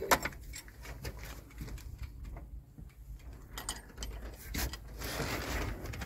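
Scattered light clicks and metallic clinks of hand tools and screws being handled, with a brief rustle near the end.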